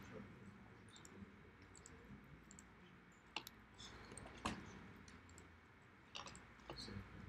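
Faint, scattered computer mouse clicks over quiet room noise, a few seconds apart, the loudest about four and a half seconds in.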